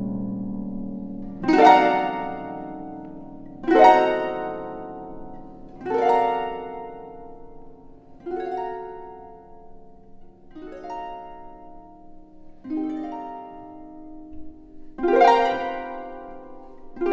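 Concert pedal harp playing alone: a slow run of full plucked chords, one about every two seconds, each struck sharply and left to ring and fade. The first chords are the loudest, the middle ones softer, and they swell again near the end.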